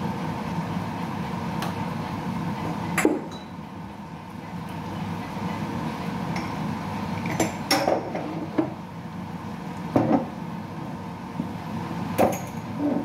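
A metal cooking utensil clinking and knocking against a pan while chicken is stir-fried: about half a dozen sharp, irregularly spaced clinks over a steady background noise.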